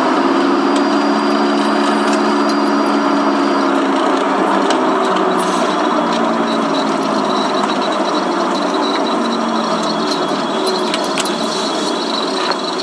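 Steady running vehicle noise, a low drone with engine-like tones, and a few faint ticks.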